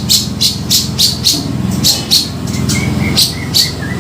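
Cucak jenggot (grey-cheeked bulbul) calling: a quick run of short sharp chirps, about three a second, with a few brief lower notes in the second half, over a steady low hum.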